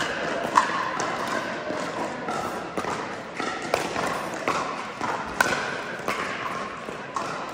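Pickleball paddles hitting the hard plastic ball in a rally: a string of sharp pops about one a second, the loudest about half a second in, ringing in a large indoor court hall.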